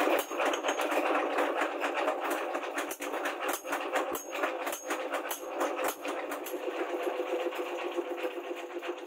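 Hand hammer striking a rebar knife blade on a steel post anvil: irregular sharp metallic blows, roughly one a second, some with a brief high ring. Under them runs a steady whirring background noise.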